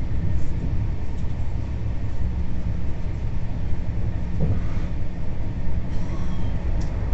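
Express passenger train running at speed, a steady low rumble of wheels on rail heard from inside the coach by the window.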